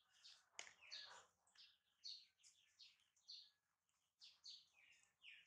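Faint birds chirping: many short, high calls in quick succession, a lot of them falling in pitch.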